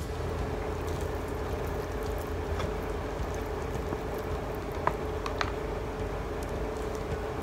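Steady background hum with a constant low tone. Over it come a few soft clicks, the loudest about five seconds in, as a slice of chocolate-and-peanut martabak manis is pulled from its cardboard box.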